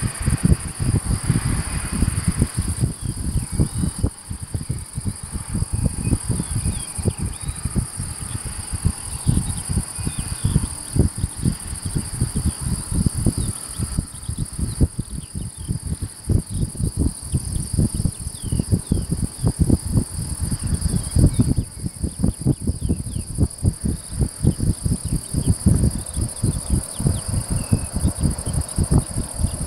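Field crickets or bush crickets chirring in a steady, high-pitched, unbroken trill, with wind buffeting the microphone in low, gusty rumbles that are the loudest thing heard.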